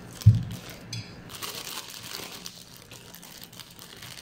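Eating and handling food at a table: a dull thump about a third of a second in, then about a second of rustling and crinkling as slices of brown bread are handled.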